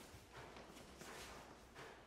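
Faint, irregular steps and shuffles of bare feet on a studio floor, a few soft steps each second.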